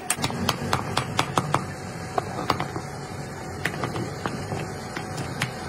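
Hammer tapping on steel truck-axle parts: a quick run of light metallic strikes, about five a second, then slower, irregular taps.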